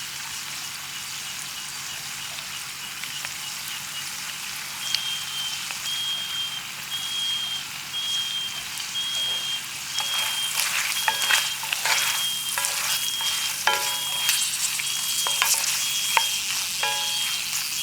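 Shrimp sizzling in garlic butter in a pan, with a run of sharp clicks from about ten seconds in. From about five seconds in, a short high chirp repeats roughly once a second in the background.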